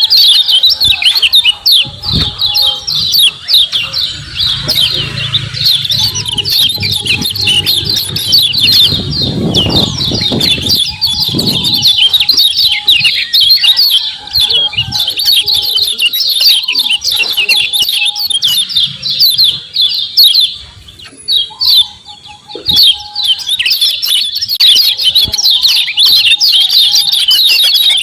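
Kecial kuning white-eye giving fast, dense 'ciak ciak' chattering calls, many high chirps a second, with a brief pause a little past twenty seconds. Low rustling sounds run under the first half.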